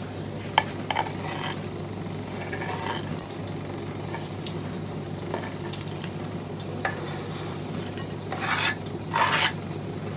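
Chopped onion, tomato and scallion scraped off a wooden chopping board with a knife into a bowl of seasoned raw chicken, with two louder scraping swishes near the end. Scattered light taps and a steady low hum run underneath.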